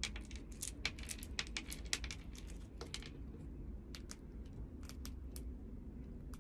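Eurasian red squirrel cracking and nibbling seeds: a quick run of small, crisp clicks and cracks, dense for the first three seconds and then scattered, over a low steady hum.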